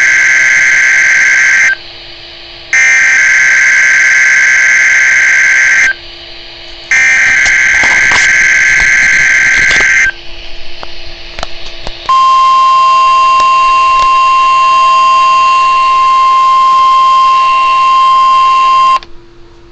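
NOAA Weather Radio weekly test alarm. Three harsh, screeching digital header bursts of about three seconds each, a second apart, come first; the first is already under way at the start. After a short pause with faint clicks, the steady single-pitch warning alarm tone sounds for about seven seconds and stops shortly before the end.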